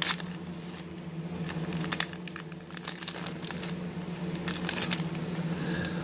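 Foil wrapper of a Pokémon trading-card booster pack crinkling and tearing as it is opened by hand, with several sharp crackles spread through.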